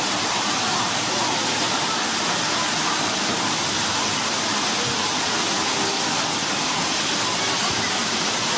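Steady rushing of water running and falling into a pool, an even hiss with no distinct splashes.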